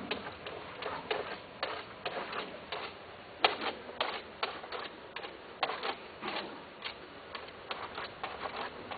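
Irregular light clicks and scuffs, a few a second and unevenly spaced, from long-haired cats shifting about on the plastic tray of a wire cage. There are no meows or yowls.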